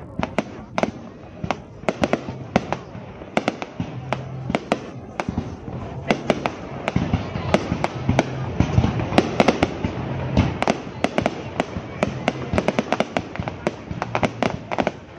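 Fireworks display going off close by: a rapid, irregular barrage of sharp bangs and crackles, heaviest around the middle.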